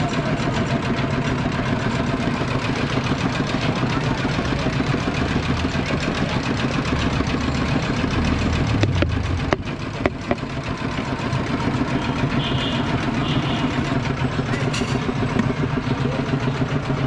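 Steady street traffic noise, with engines idling and running, and a brief dip about ten seconds in.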